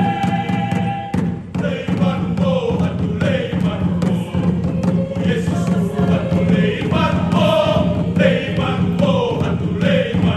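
Mixed choir singing a chant-like piece in short falling phrases over a steady drum beat, with a brief break a little over a second in.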